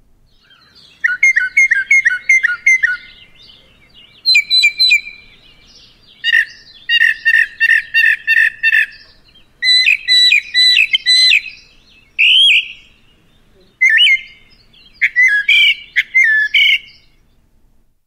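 Recording of a northern mockingbird singing. It goes through about seven different phrases, each a quick note repeated several times before it switches to a new one, with short pauses between phrases.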